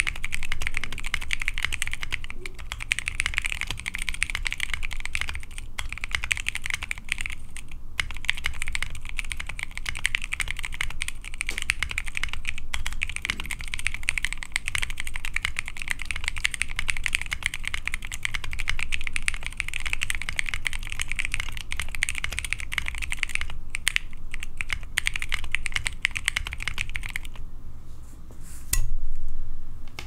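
Fast, continuous typing on a Simpler60 mechanical keyboard with ThicThock Konpeitous linear switches in a PC plate, with plate and case foam: a pretty muted, even patter of keystrokes. Near the end the typing stops and one brief, loud thump follows.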